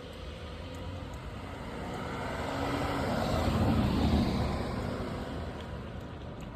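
A road vehicle passing by: a broad engine-and-tyre noise that swells to its loudest about four seconds in, then fades away.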